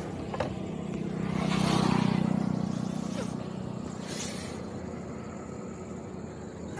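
Motor vehicle engine running with a steady low hum. It swells louder about one and a half to two and a half seconds in, then slowly fades.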